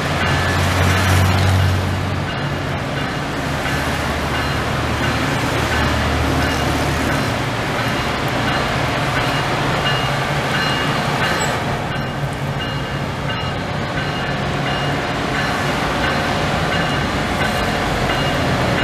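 Ferromex diesel locomotives approaching slowly, their engines running with a steady low drone.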